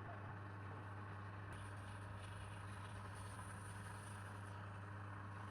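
A steady low electrical hum over a faint, even background hiss.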